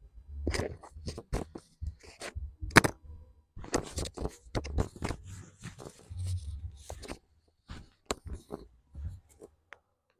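Rustling and scraping of clothing against a padded treatment table as a patient is moved and positioned, with a run of sharp clicks and cracks and dull thuds; the loudest crack comes about three seconds in.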